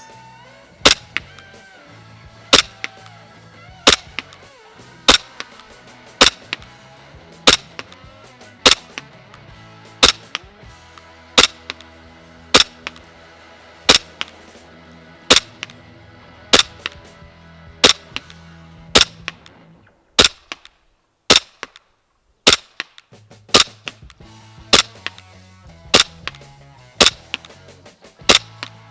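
WE Glock 17 gas blowback airsoft pistol firing single shots, about one every second and a quarter, some two dozen in all, each a sharp crack of gas with the slide cycling.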